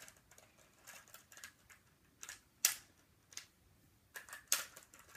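Scattered plastic clicks and clacks of Rubik's cubes being handled and turned, with two sharper knocks about two and a half and four and a half seconds in.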